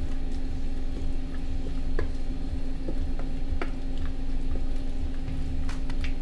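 Wet squishing of raw chicken pieces coated in egg and cornstarch being stirred with a wooden spoon in a stainless steel bowl, with a few sharp clicks of the spoon against the bowl.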